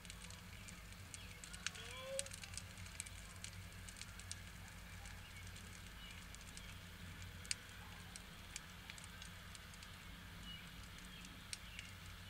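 Open yard fire burning, giving off faint, irregular crackles and sharp pops, with a short rising bird-like chirp about two seconds in.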